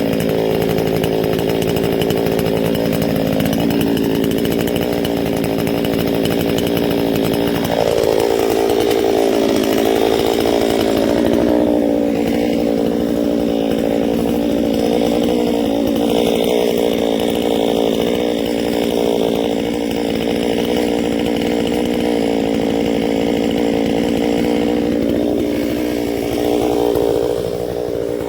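Two-stroke chainsaw running under load, ripping a log lengthwise in a vertical chainsaw mill. Its engine note shifts about eight seconds in and eases briefly near the end.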